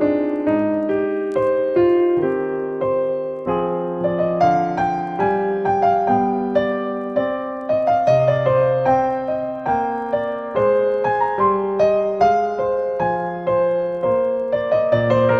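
Background piano music: a continuous melody of ringing notes over chords.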